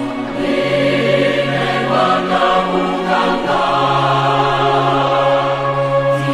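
Choir singing, with long held chords that shift to new notes about half a second in and again about three and a half seconds in.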